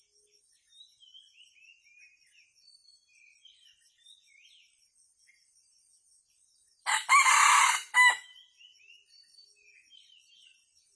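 A junglefowl decoy rooster crows once, loud and short, about seven seconds in. Steady high insect trilling and small bird chirps run underneath.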